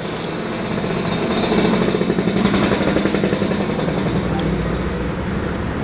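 Noodles being slurped off chopsticks, over a steady hum of road traffic that swells in the middle and then eases off.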